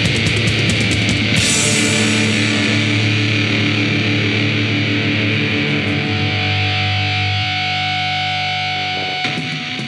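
Pagan black metal with heavily distorted electric guitars and drums. The drumming stops about a second and a half in, and a final distorted chord rings on and slowly fades before cutting off at the very end.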